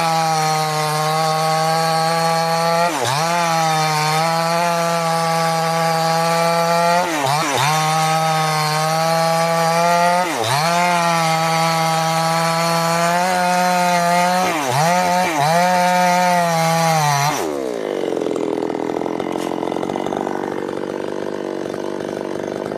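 Two-stroke chainsaw running at high revs, its pitch dipping briefly several times as the chain bites into the wood, then throttled down to a low idle about seventeen seconds in.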